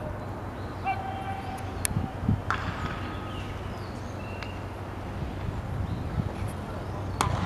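Outdoor ballfield ambience during infield practice: faint distant shouted calls over a steady low rumble, with two sharp knocks, one about two seconds in and one near the end.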